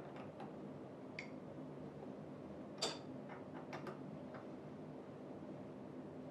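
Light metallic clicks and ticks of screws and a tool being worked on the chair's backrest bracket, scattered and irregular. One louder clink with a brief ring comes about three seconds in. A low steady hum runs underneath.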